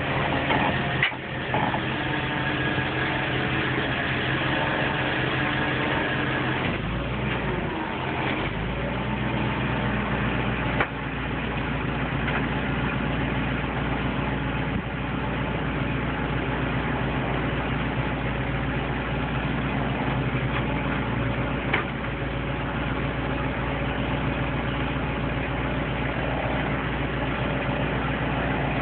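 Tow truck's engine idling steadily. A thin high tone sits over it for the first seven seconds or so, and there are three short sharp knocks: about a second in, around eleven seconds and around twenty-two seconds.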